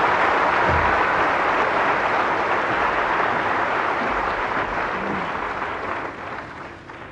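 Theatre audience applauding, a steady wash of clapping that dies away near the end.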